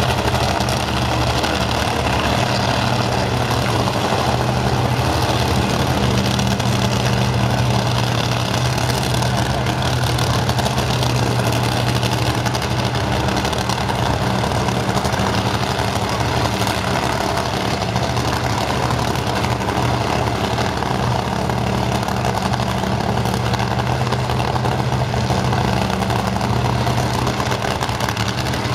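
Drag racing funny car's engine idling with a steady low note, no revving.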